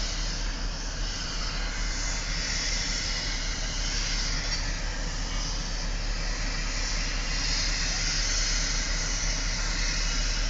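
Steady rushing noise of a vehicle in motion, even throughout, with a low hum underneath.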